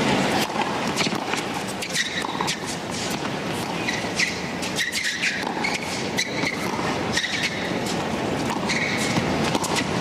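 Tennis rally on a hard court: racket strikes on the ball and several short, high sneaker squeaks on the court surface, over a steady crowd murmur.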